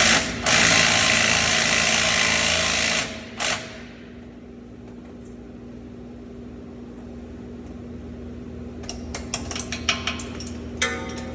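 Impact wrench hammering, turning the brake slack adjuster's adjusting nut: a short burst, then a run of about two and a half seconds, then another brief burst. A few sharp metallic clicks near the end.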